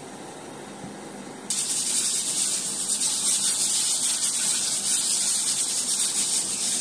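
Faint room tone, then a steady, high-pitched hiss that starts abruptly about one and a half seconds in and holds level.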